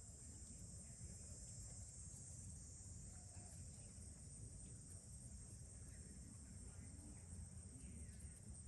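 Faint, steady high-pitched insect chorus, with a low rumble underneath.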